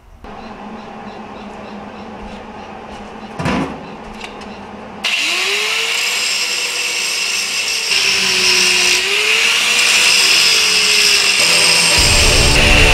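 Handheld electric angle grinder switched on about five seconds in and grinding on steel tube, a loud steady whine whose pitch dips and recovers twice as the wheel is pressed into the metal.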